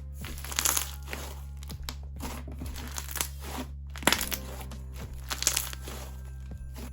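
Slime being squeezed and stretched by hand, giving irregular crackles and pops from air bubbles and crunchy add-ins.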